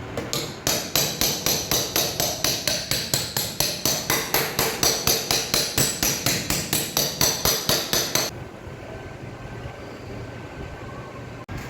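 A small hammer tapping on a car body panel during paintless dent repair, in a steady run of light strikes about four a second for roughly eight seconds before stopping.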